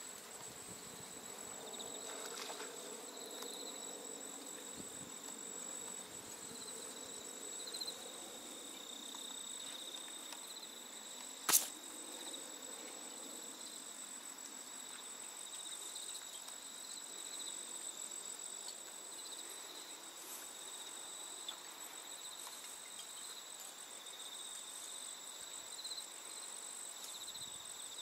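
Steady high-pitched chirring of insects, a chorus of crickets or similar singing insects, with one sharp click near the middle.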